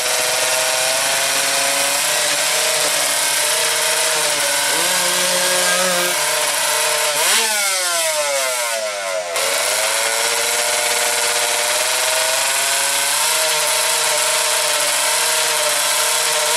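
125cc two-stroke drag-racing motorcycle engines held at high revs on the start line, a steady high-pitched run with one sharp rev that rises and falls away about halfway through.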